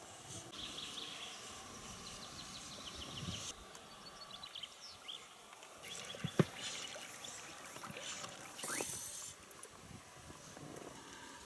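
Quiet river ambience from a drifting inflatable boat: small birds chirping from the wooded bank, a single sharp knock about six seconds in, and a brief rush of noise near nine seconds.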